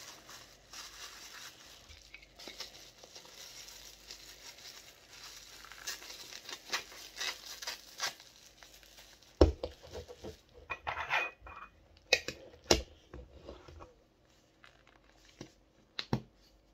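Bubble wrap and plastic packaging crinkling and rustling as a small vinyl figure is unwrapped by hand. In the second half come several sharp knocks and clicks of hard objects being handled, the loudest about nine seconds in.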